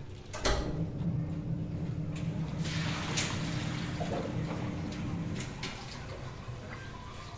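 Water running for about five seconds, starting just after a click and fading out near the end.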